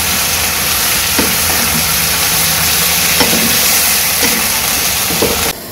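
Vegetables (aubergine, potato and gourd) sizzling in hot oil in a non-stick wok as they are sautéed with spices, the spatula clicking against the pan about once a second. The sizzle cuts off suddenly near the end.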